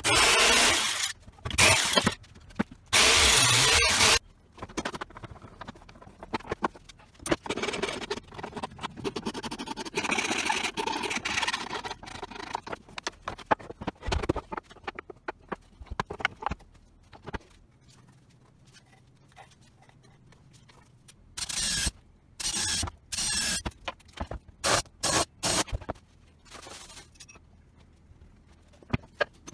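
Workshop tool noise: irregular bursts of scraping and grinding, with a quieter stretch about two-thirds of the way through before short bursts start again.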